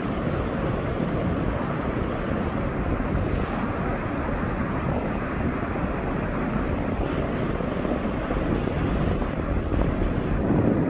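Sea waves washing on a beach, with wind rumbling on the microphone; the surf swells a little louder near the end.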